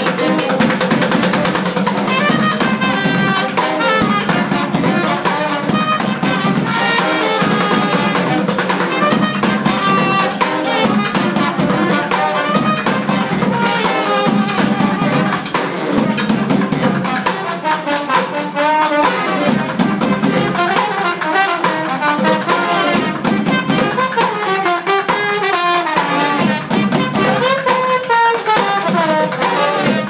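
Live street brass band playing: saxophone and trombones over a steady beat of bucket and metal-drum percussion.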